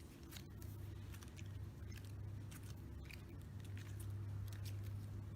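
Faint, irregular clicks and taps of a small fidget toy being handled, over a low steady hum.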